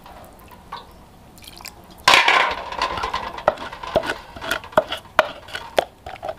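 Wooden pestle stirring and knocking in an earthenware mortar of wet seasoning. A loud scrape comes about two seconds in, then sharp knocks against the mortar about twice a second, each with a short ring.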